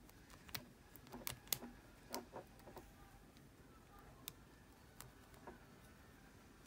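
Faint, irregular metallic clicks of a lock pick and tension wrench working the pins of a small TSA-approved luggage padlock, partway through picking it.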